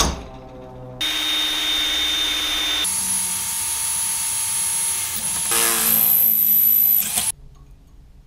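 A single sharp click from a centre punch marking the hole, then a Ryobi cordless drill boring a hole through an aluminium bar bracket for about six seconds. Its whine shifts pitch twice and cuts off suddenly.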